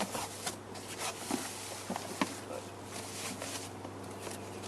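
A box and its packaging being handled and opened: rustling with scattered small knocks and clicks over a low steady hum.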